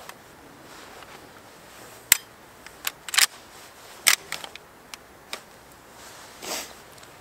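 Henry Lever Action Axe .410 lever action being worked by hand: a string of sharp metal clicks and clacks, then a longer scrape about six seconds in, as the jammed lever won't close. The action is locking up because the loading gate has worked loose and is blocking it.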